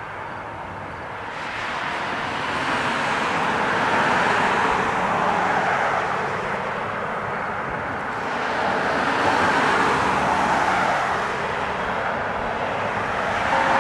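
Road traffic: cars passing on the road by the railway bridge, the tyre and engine noise swelling and fading twice, about four seconds in and again about ten seconds in.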